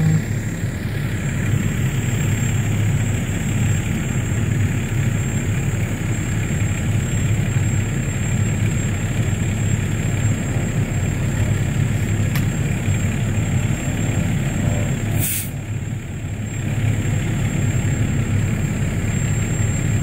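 Fire truck's diesel engine idling steadily with a low rumble. A short, sharp hiss of air comes about fifteen seconds in.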